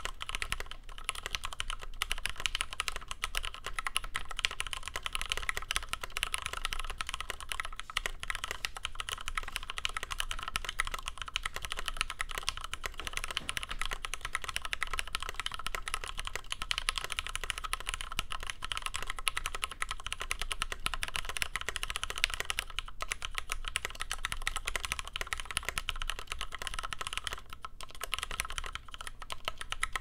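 Continuous fast typing on an Idobao ID80 75% mechanical keyboard fitted with lubed Cherry MX Black linear switches and PBT keycaps: a dense, steady run of key clacks, with a couple of brief pauses near the end.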